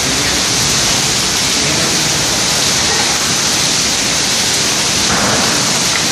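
Heavy rain falling, a steady loud hiss.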